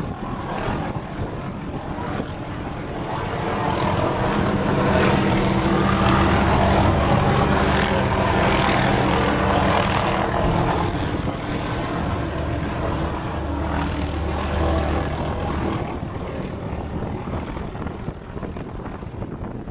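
Tour boat's engines running under way, growing louder over several seconds and then easing off.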